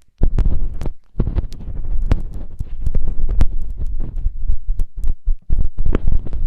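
Close-up ASMR ear sounds on a binaural ear microphone: irregular rubbing, muffled thuds and sharp clicks with a deep rumble, briefly dropping out about a second in.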